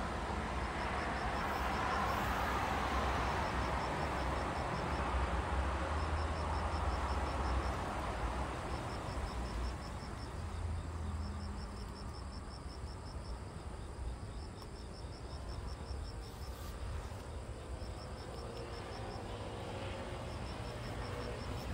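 Outdoor ambience: an insect chirping in short high-pitched trills, one about every two and a half seconds, over a steady low rumble and a hiss that is louder in the first half and fades after about ten seconds.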